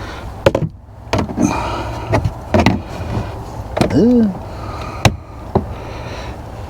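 Plastic interior trim panels being handled and snapped back into place: a series of knocks and clicks, with a short rising-and-falling squeak about four seconds in.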